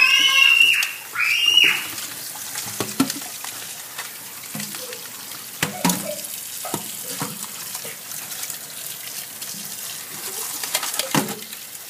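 Tap water running into a metal colander of crabs in a stainless steel sink, with scattered clicks and knocks from the crabs and basket being handled. A high-pitched squealing voice opens the sound and stops about two seconds in.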